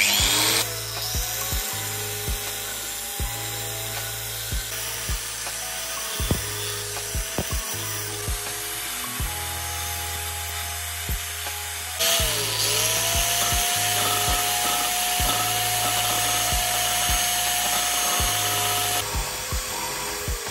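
Angle grinder spinning a compact disc fitted in place of a grinding wheel: the motor whine rises quickly to a steady high pitch. About twelve seconds in the pitch drops briefly and climbs back, with a louder hiss. Background music with a steady beat plays throughout.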